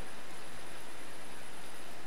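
Steady rain falling, an even hiss of many drops with no breaks or changes.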